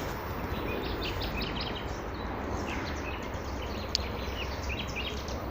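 Small birds chirping in many short, high notes over steady background noise, with one sharper note about four seconds in.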